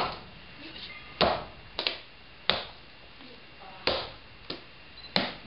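Wooden kine mallet pounding steamed rice into mochi in a stone usu mortar: five heavy, wet thuds, one about every 1.3 seconds. Lighter slaps come between some strikes as the dough is turned by hand.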